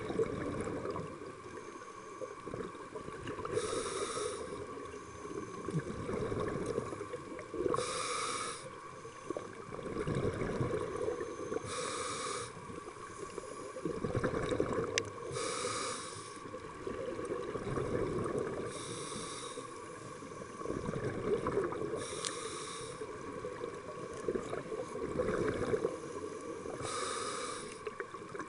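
Scuba regulator breathing underwater: a short hissing inhale about every four seconds, with the rumble of exhaled bubbles in between.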